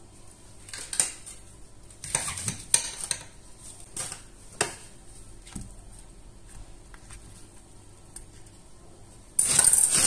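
Whole leeks being set into a stainless steel pot of broth, with several sharp knocks and clinks against the pot. Near the end a louder, noisy sound starts abruptly.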